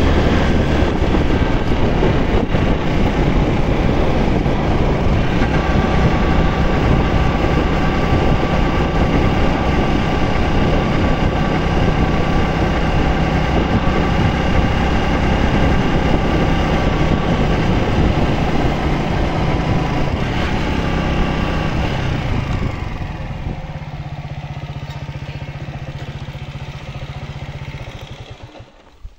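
Motorcycle riding along a winding road, its engine running steadily under heavy wind rush. About three-quarters through it eases off to a quieter, steady low hum as it slows, and the sound drops away just before the end.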